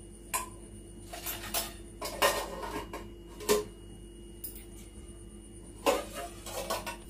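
Kitchen utensils clinking and clattering off to the side: metal knocking against pots and containers in short, scattered strikes, the sharpest about two, three and a half and six seconds in.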